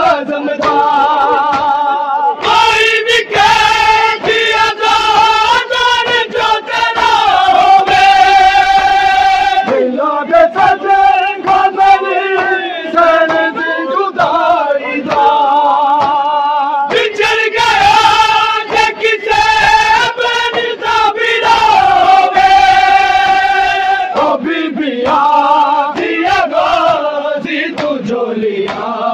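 Men's voices singing a Punjabi noha (Shia lament) in long held phrases, with steady rhythmic slaps of hands striking bare chests in matam keeping time.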